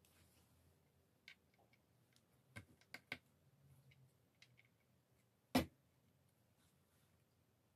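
Scattered small clicks and taps of hardware being handled and fitted into a wooden electric guitar body, with one sharper knock about five and a half seconds in, over faint room tone.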